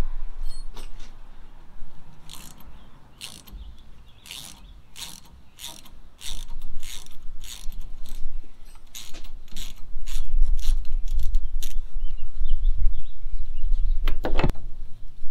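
T-handle Allen wrench being turned in the set screw of a collar on a side dump trailer's tarp roller arm, loosening it: a run of short, scratchy metallic clicks, about two a second, for several seconds. Near the end there is a loud rustle as a jacket sleeve brushes the microphone.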